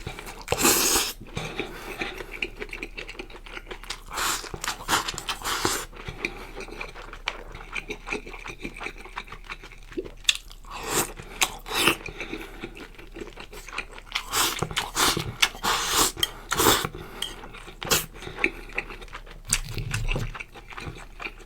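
Close-miked eating sounds: irregular chewing and crunching bites, with occasional clinks and scrapes of a utensil.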